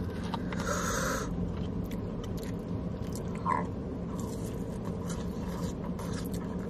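Plastic fork scraping through sauce-covered fries in a plastic takeout tray, during about the first second, then close-up chewing with small mouth clicks.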